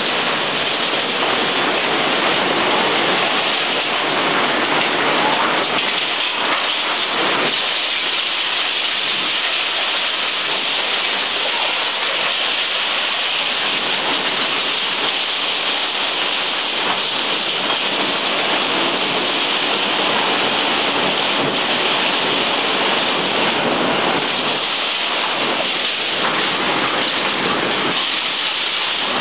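Torrential rain driven by storm wind: a loud, steady rush of downpour with no let-up.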